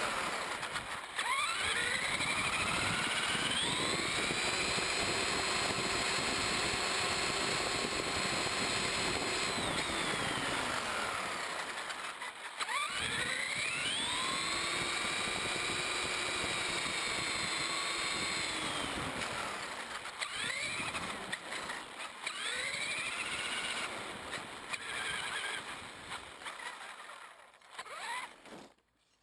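Traxxas Summit 1/10-scale RC truck's electric motor and gear drivetrain whining. The whine rises as the truck speeds up, holds steady for several seconds and falls as it slows, twice at length, then in shorter bursts, before it cuts off near the end.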